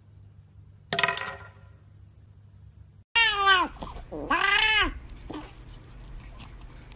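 A cat meowing twice, two loud, drawn-out cries that rise and fall in pitch, starting about three seconds in, followed by faint clicks. About a second in there is a single short high squeak.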